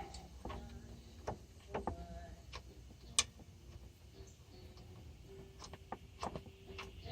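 Faint, irregular clicks and ticks of hand tools working on the bolts that hold a power steering pump to its aluminium bracket.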